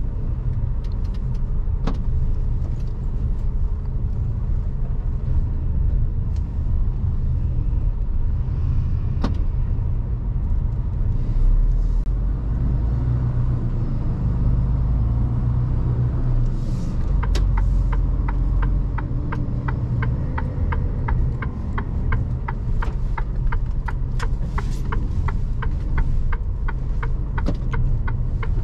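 Mercedes Actros truck running on the road, a steady low rumble heard from inside the cab. From a little past halfway, a quick regular ticking starts, about two to three ticks a second.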